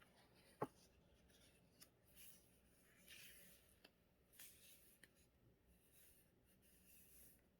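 Faint paper rustling and brushing as a small handmade paper book is handled, with one sharp tap about half a second in.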